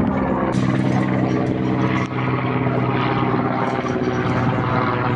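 Helicopter flying overhead: a steady, loud drone of rotor and engine holding an even pitch.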